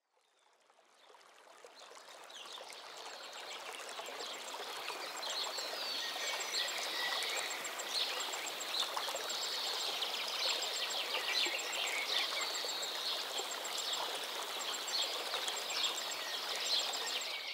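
Outdoor nature ambience: a steady rush of running water with many birds chirping over it, fading in over the first few seconds and cutting off at the end.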